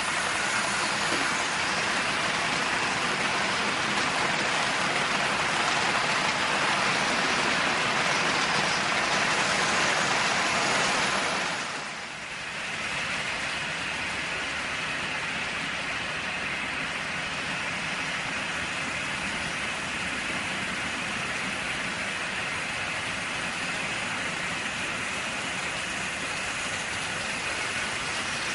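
Märklin HO model freight train rolling on metal track: a steady rolling noise of wheels and motor, louder in the first half, dipping briefly about halfway through, then steady and a little quieter.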